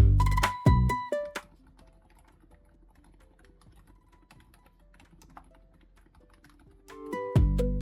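Soft, muted keystrokes of typing on a Keychron K10 Ultra mechanical keyboard with K Pro Light Banana switches, made to be near-silent. Background music stops about a second in and comes back near the end.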